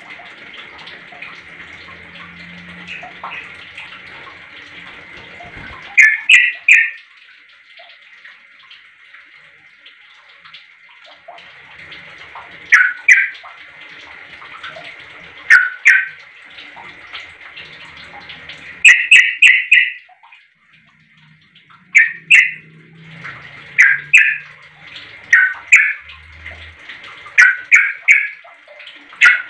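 Sooty-headed bulbul (trucuk) calling in short bursts of two to four quick notes, repeated every few seconds and coming more often in the second half, over a steady hiss.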